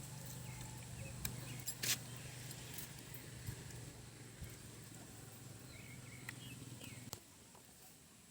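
Faint, scattered clicks and knocks of green plantains being cut with a blade, the loudest about two seconds in, over a low steady hum that cuts off about seven seconds in, with a few faint bird chirps.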